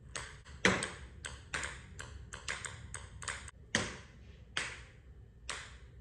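Ping pong balls bouncing off a wooden wall and a concrete garage floor: a quick, irregular string of about fifteen sharp, light clicks.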